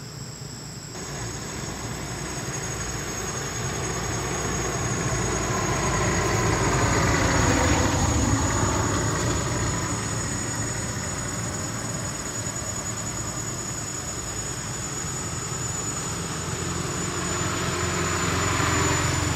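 Motor vehicles passing, their noise swelling to a peak about eight seconds in, fading, then rising again near the end, over a steady high-pitched insect drone.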